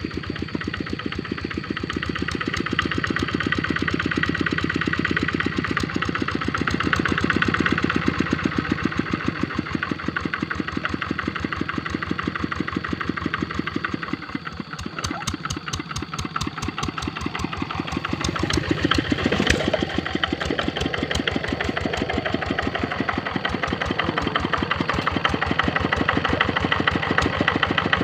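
Kubota RD65 single-cylinder diesel on a two-wheel hand tractor running with a steady rapid chug. Its loudness eases about halfway through and builds again after.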